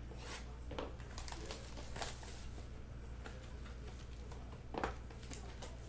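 Clear plastic shrink-wrap being torn off a trading card box and crumpled by hand: scattered crinkles and crackles, the sharpest about five seconds in.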